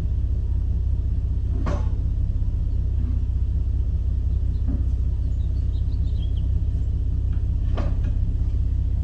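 Nissan 370Z's 3.7-litre V6 idling with a steady low rumble, broken twice by a brief knock.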